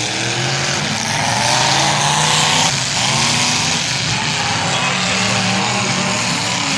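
Several demolition derby cars' engines revving hard at once, their pitches rising and falling over a steady loud din.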